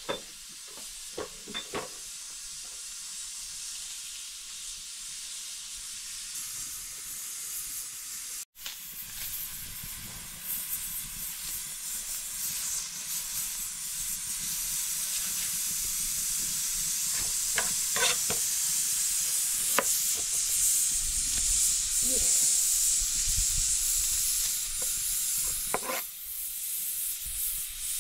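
A steady sizzling hiss of food cooking on the fire, growing louder about ten seconds in, with a few light clicks of a knife against a plastic cutting board as a red onion is peeled.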